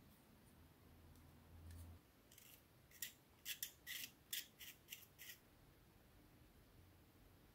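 Small plastic model-kit parts and hobby tools handled at close range: a quick run of about eight light, sharp clicks over some three seconds, starting about two and a half seconds in.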